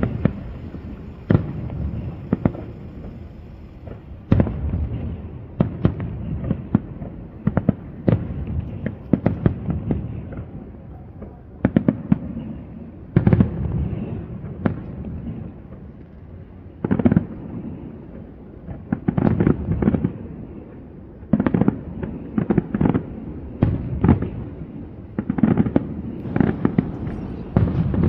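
Aerial fireworks display: shells bursting one after another in an irregular barrage of sharp bangs, each trailing off in a low echoing rumble, with quick clusters of bangs near the end.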